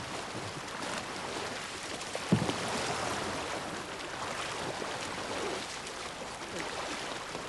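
Kayak paddles splashing and water sloshing as several kayaks are paddled, with one short thump a little over two seconds in.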